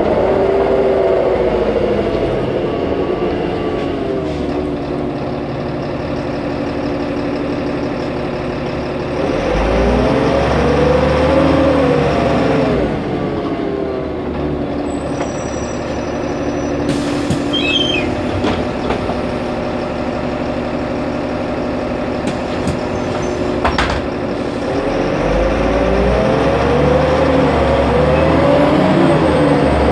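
Solaris Urbino 15 city bus heard from inside, its diesel engine and drivetrain running steadily. The engine pitch falls at the start as the bus slows, rises and falls again with a burst of acceleration about a third of the way in, and climbs once more near the end. A few sharp clicks come in the middle.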